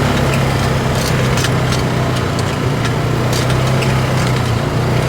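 Polaris RZR 570 side-by-side's single-cylinder engine running steadily while driving along a dirt trail, with tyre and trail noise and scattered sharp clicks and knocks.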